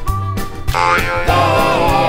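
Upbeat children's background music with a steady beat; just under a second in, a louder, wavering sound effect joins it.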